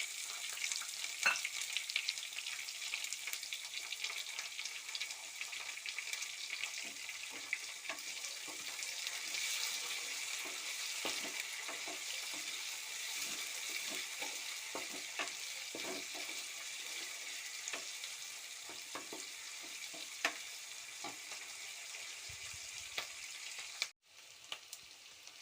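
Chopped onion sizzling steadily in hot oil in a pan, with scattered clicks and scrapes of a spoon stirring it. The sizzle drops off suddenly near the end to a fainter hiss.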